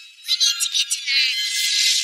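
Cartoon soundtrack music with short, high, wavering notes, starting after a brief dip in loudness.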